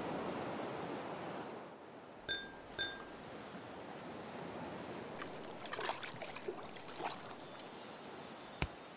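Ocean waves washing, fading out about two seconds in. Then two short glassy clinks about half a second apart, followed by soft scattered rustles and ticks and one sharp click near the end.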